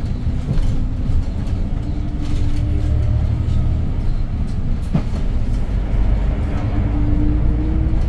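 Inside the cabin of a 2022 Hyundai New Super Aerocity city bus under way: the CNG engine drones low over road rumble and cabin rattle. There is a sharp click about five seconds in, and the engine note rises near the end.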